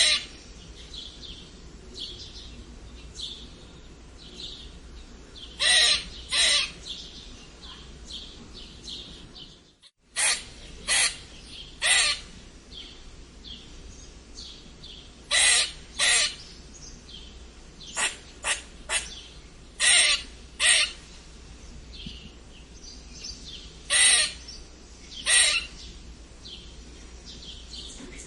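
Squirrel squeaking: short, loud, harsh calls every few seconds, often in pairs, with fainter high chirps in between.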